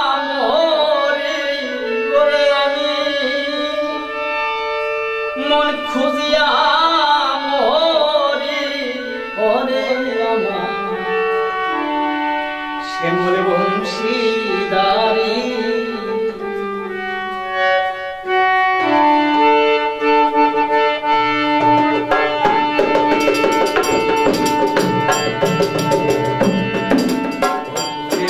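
A man sings a Bengali baul folk song over harmonium chords. About two-thirds of the way in the voice stops and the harmonium carries a held instrumental passage. Soon after, a two-headed barrel drum (dhol) and small hand cymbals join in a steady rhythm.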